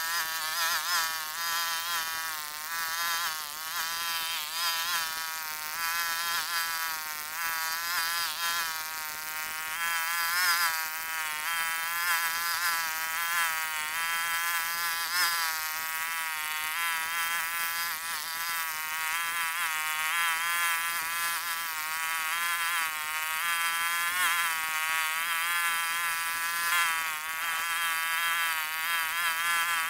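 Small engine of a mini excavator running as a steady buzzing drone, its pitch wavering up and down as the machine digs and tracks across the field.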